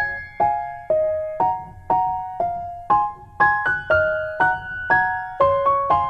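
Background music: a simple piano melody of single notes and light two-note chords, about two a second, each struck and then fading.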